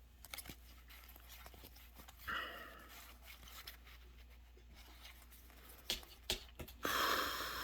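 Soft clicks and rustles of trading cards being handled, then, near the end, a short breathy blow of under a second, puffed at a cat to shoo her off the desk.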